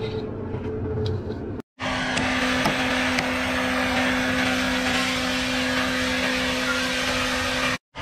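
Sawmill machinery running with a steady hum. About one and a half seconds in, the sound breaks off abruptly, then returns louder as an even hiss over a steady hum that holds until it cuts off again near the end.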